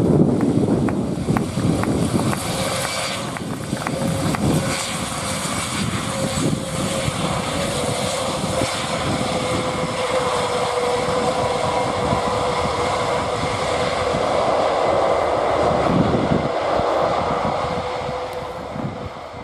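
Airbus A400M's four Europrop TP400 turboprops with eight-bladed propellers running at taxi power as the aircraft rolls past: a steady droning tone over engine noise. It fades away near the end as the aircraft moves off.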